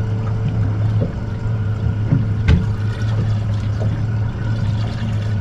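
Water lapping and splashing against a boat's hull under a steady low hum. A single sharp knock comes about two and a half seconds in.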